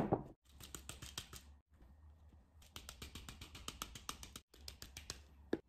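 Potting soil rustling and crackling in a small plastic nursery pot as it is filled and handled: a quick run of fine dry clicks and scrapes, broken by a few short silences. A single thump right at the start.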